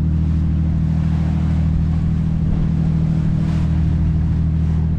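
Nordhavn 55 trawler's diesel engine droning steadily underway, under a steady rush of water and waves against the hull, with a brief louder surge of water about three and a half seconds in.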